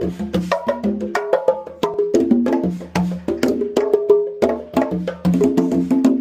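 Conga drums played by hand: a fast, steady stream of sharp strikes, ringing open tones mixed with slaps in an Afro-Cuban rhythm.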